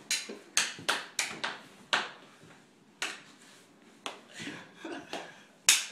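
Floor hockey play on a hard tile floor: about a dozen sharp, irregular clacks and knocks of sticks striking the ball and the floor. The loudest clack comes near the end.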